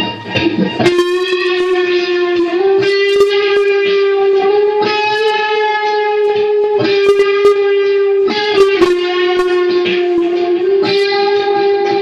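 Electric guitar playing a slow melody of long, held single notes that step and slide slightly in pitch from one note to the next.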